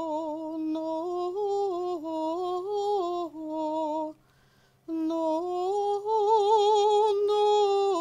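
A woman humming a tune without words, in two phrases with a short break about four seconds in; the notes step up and down and the pitch wavers in the second phrase.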